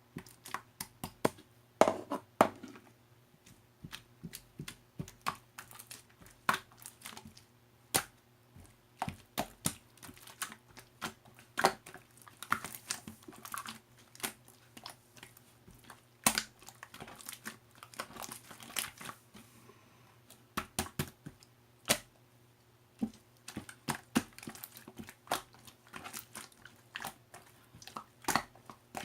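Irregular crinkling and crackling with many sharp clicks and taps, as of something being handled close up, over a faint steady low hum.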